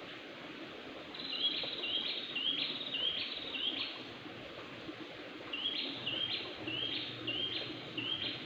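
A bird calling in two runs of about six short rising notes, roughly two a second, with a short pause between the runs. Underneath is the steady low rush of a shallow rocky stream.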